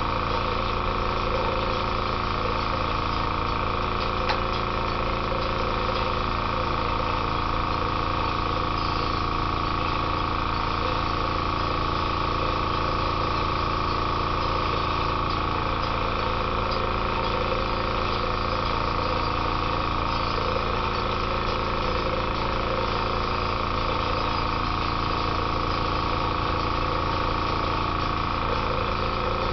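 Airbrush air compressor running steadily, a constant motor hum.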